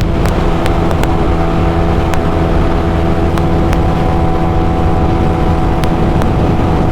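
Motorcycle engine held at steady high revs while cruising flat out at its top speed, with heavy wind rumble on the microphone.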